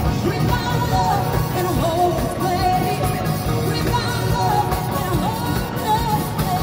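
Live band playing, with a group of singers leading over drums and keyboard; the sung lines hold and waver without break.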